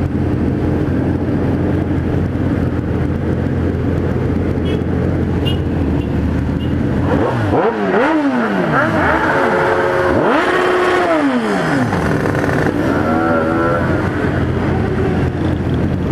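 Many motorcycle engines running in a slow-moving pack. From about seven seconds in, engines are revved several times, the pitch rising and falling repeatedly.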